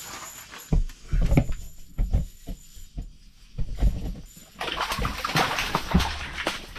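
A trout being landed through a hole in the ice: several heavy thumps, then from about four and a half seconds in a busy wet slapping and splashing as it flops on the wet ice.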